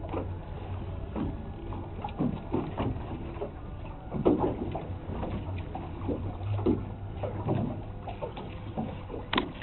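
Fishing boat's engines running slowly in a steady low drone, with water slapping and sloshing against the hull in short irregular splashes.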